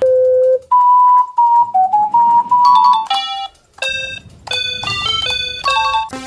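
Miniature instruments playing short tunes. A held note comes first, then a brief piping melody of pure, single tones, and from about halfway on a run of bright plinking notes, keyboard- or music-box-like.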